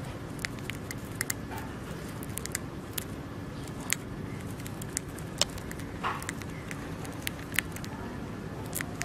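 Dwarf hamster nibbling a piece of food held in its paws: small sharp clicks and crunches come at an irregular pace, a few a second, over a steady low hum.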